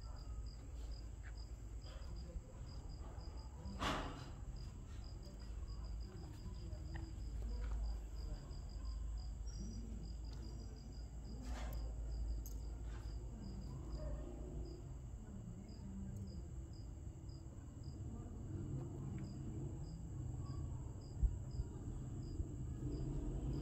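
A cricket chirping in a steady high-pitched series, two to three chirps a second, over a low background rumble. A couple of short knocks stand out, about four seconds in and again near the middle.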